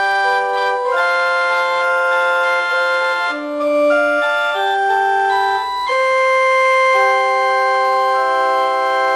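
Casio LK-120 electronic keyboard playing held chords in a sustained voice whose notes don't fade, changing chord every second or two, then holding one chord from about six seconds in.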